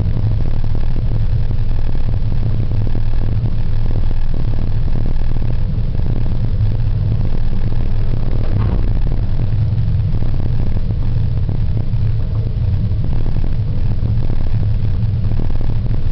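Steady low rumble inside a moving gondola cabin riding down the cable. About halfway through, a brief rattle comes as the cabin passes a support tower.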